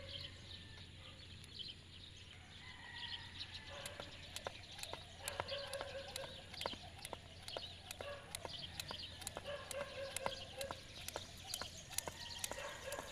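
Irregular sharp clicks and taps mixed with chirping animal calls.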